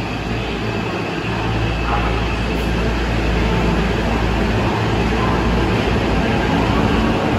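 Tokyo Metro Marunouchi Line train pulling out of an underground station, its running noise growing slightly louder as it picks up speed.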